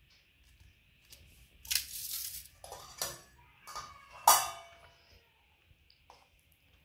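Stainless steel plates and a steel bowl clinking and scraping while food is served. A scrape comes about two seconds in, then clinks, the loudest about four seconds in, ringing briefly.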